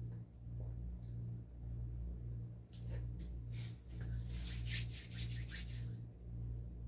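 Hands rubbing together and fingers brushing against each other, dusting bread crumbs off: a rapid run of short, dry, scratchy strokes in the middle of the clip. A steady low hum runs underneath.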